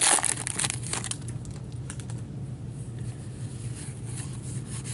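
Wrapper of a hockey card pack crinkling as it is pulled open, fading about a second in, then sparse soft clicks of trading cards being sorted through in gloved hands.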